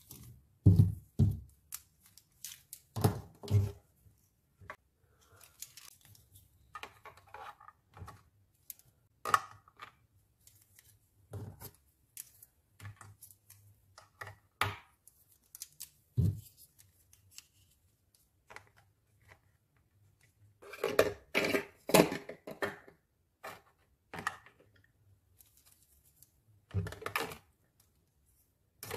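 Small hard plastic toy kitchen pieces (fork, spatula and spoons) clicking and clacking against each other and the plastic playset as they are handled and slotted into place. Single taps come with pauses between them, and there is a busier run of knocks about two-thirds of the way through.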